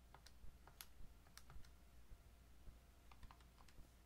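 Faint, irregular clicks of a TI-84 Plus C Silver Edition graphing calculator's keys being pressed one at a time as a number is keyed in.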